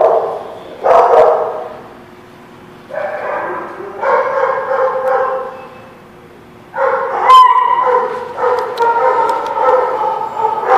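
Small dogs barking and yipping in bouts: two sharp barks at the start, then longer runs of barking from about three seconds in and again from about seven seconds on.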